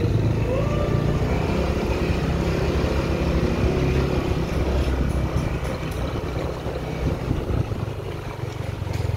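Motorcycle engine running steadily while riding along at low speed, easing off a little near the end.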